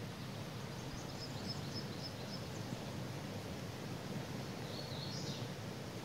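Steady rushing of a shallow, rocky forest creek, with a songbird singing high, quick phrases about a second in and again near the end.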